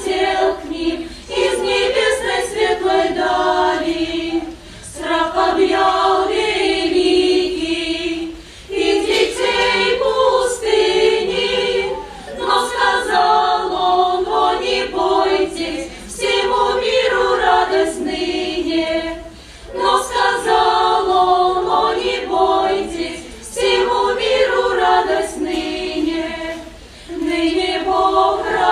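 Russian folk choir singing a song in phrases of about three to four seconds, with short breaks for breath between them.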